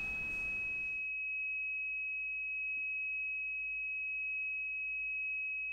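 A steady, high-pitched electronic sine tone held at one pitch and an even level, with no decay.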